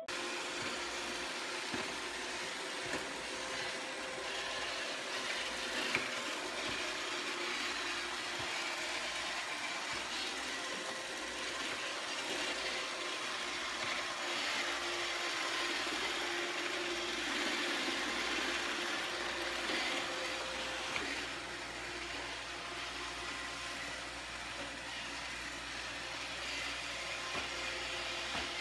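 Robot vacuum cleaner running steadily, its motor and brushes making an even whirring hum as it drives over a tile floor.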